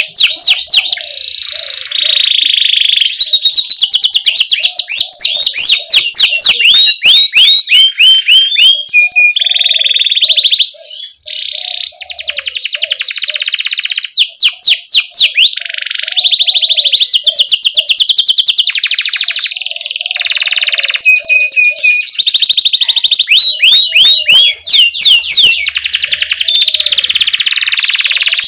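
Domestic canary singing loudly and without pause, in fast rolling trills and repeated chirps, with one brief break about eleven seconds in.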